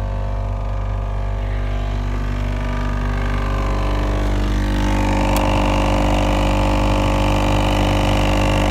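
2005 Dodge Durango's heater/AC blower motor and fan running with a steady hum and whir, growing louder and fuller about halfway through; the noise is the annoying blower-fan sound being demonstrated.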